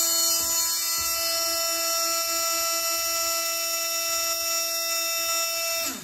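Milwaukee M12 Fuel cordless oscillating multi-tool running with no load, a steady even-pitched buzz with a high hiss over it. It is switched off abruptly near the end.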